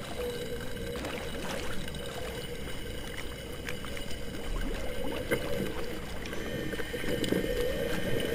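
Air bubbles rushing and gurgling underwater as an ascent lift bag vents expanding air on its way up, with scattered small pops and a wavering hum underneath.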